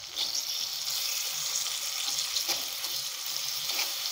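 Pork and vegetables sizzling in a wok. The sizzle swells just after the start and then holds steady, with a few light knocks in it.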